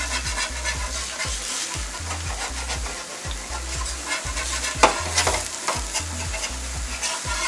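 Smash burger patty sizzling on a hot propane flat-top griddle while a metal spatula scrapes repeatedly under it to free it from the steel, with a sharper scrape about five seconds in. A low bass beat runs underneath.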